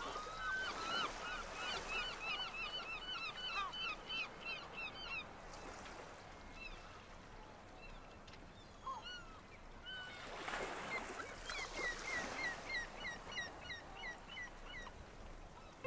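Birds calling in quick runs of short, sharp, repeated notes, about three a second: one run for the first five seconds and another after a lull. There is a brief rush of noise about ten seconds in.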